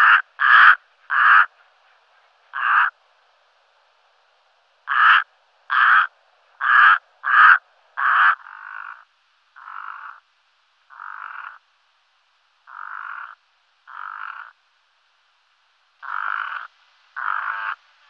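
Brown-necked raven giving a series of harsh croaking calls, each under a second long, some in quick runs and some spaced a second or two apart. The calls turn fainter about halfway through, with two louder ones near the end.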